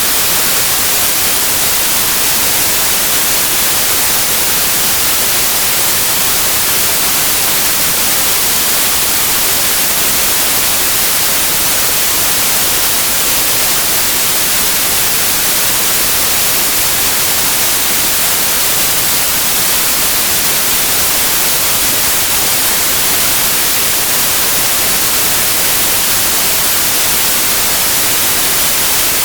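Steady, loud white noise: an even hiss with no tone, rhythm or change, played as a sleep sound for babies.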